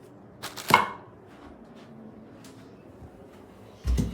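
Parts of a boxed shower head set being handled: a sharp clack a little under a second in, a few light ticks, then a dull thump near the end.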